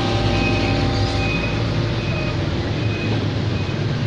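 Street traffic with motor scooters and motorcycles riding past, a steady engine hum. Short, faint, high beeps repeat about every second over it.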